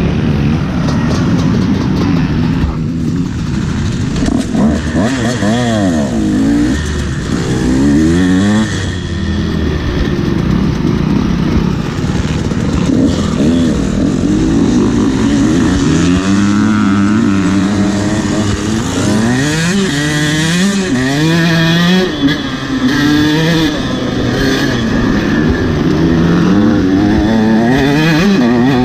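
Motocross dirt bike engine revving hard and dropping back over and over, its pitch climbing and falling repeatedly as it accelerates and shifts.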